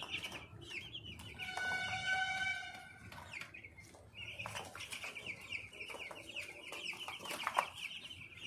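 A flock of 14-day-old chicks peeping, a rapid run of high cheeps, easing off for a moment about halfway through. About a second and a half in, a bird gives one steadier call lasting about a second.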